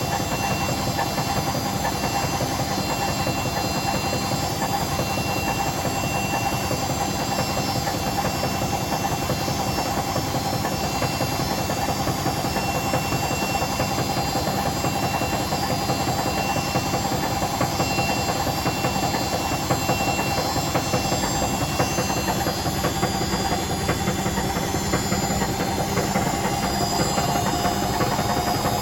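Hotpoint BHWMXL145 washing machine spinning steadily at speed, its drum running on a snapped drum spider: a constant whirring with a steady motor whine that sags a little near the end.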